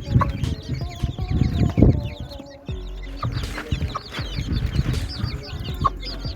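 Baby chicks peeping continually, many short high peeps overlapping, with a hen's lower clucks mixed in.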